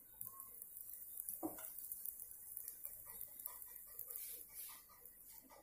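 Faint scraping and light ticks of a steel spoon spreading oil over a paratha on a hot iron tawa, with a soft knock about a second and a half in.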